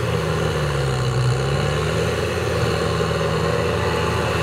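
Kubota M6040SU tractor's four-cylinder diesel engine running under load as the tractor works through deep paddy mud. The engine note dips briefly about a second in, then recovers and holds steady.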